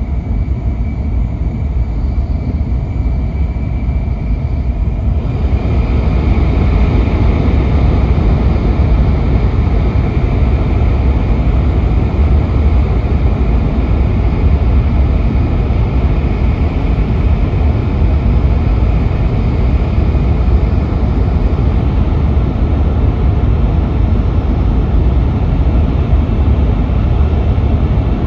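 Running noise of an N700S Shinkansen at speed, heard inside the passenger cabin in a tunnel: a steady low rumble and rush that grows louder about five seconds in.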